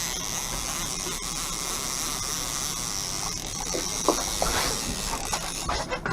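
Fishing reel being cranked to bring in a hooked salmon: a steady high whirring that stops abruptly near the end, with a few light knocks.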